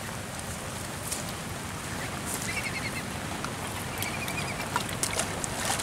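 Young ducks peeping in two quick runs of short, high notes, about halfway through and again near the end, over a steady background hiss.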